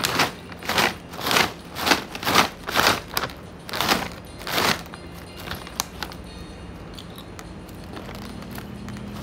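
Thin plastic bag rustling and crinkling as it is handled and opened, in a quick series of bursts through the first five seconds, then dying down.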